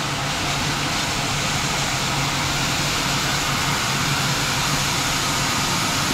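Plasma cutter cutting through the steel shell of an A/C compressor: a steady hiss of the arc and air, with a low steady hum beneath it.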